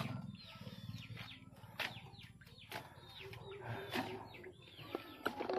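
Birds chirping over and over in short falling calls, with a few sharp clacks of slipper lobster shells being handled on a plastic-mesh table.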